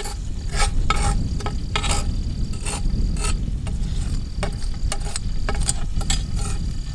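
Metal tongs raking through hot charcoal briquettes on a cast-iron Dutch oven lid, with irregular clinks and scrapes a few times a second. The coals are being shifted off the middle of the lid, where there is too much heat.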